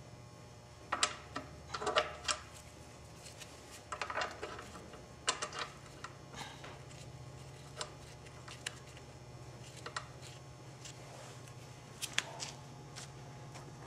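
Small metal clicks and taps in short clusters as a gloved hand works the servo covers on a Ford 5R55S/5R55W transmission case, over a steady low hum.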